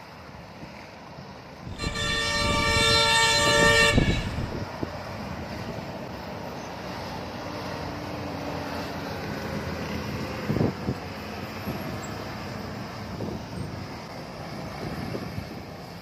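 Coach bus air horn sounding one long blast of about two seconds, starting about two seconds in, followed by the bus's engine running as it climbs.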